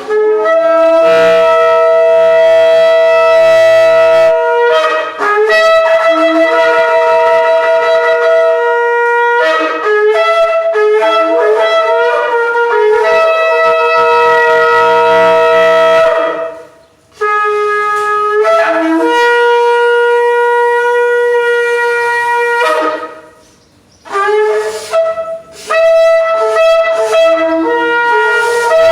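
Shofars (ram's-horn trumpets) sounding in long held blasts, with two short breaks in the second half and short choppy notes near the end.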